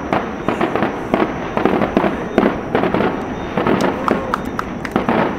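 Fireworks display: many bangs and crackles from bursting shells in quick succession, with no pause.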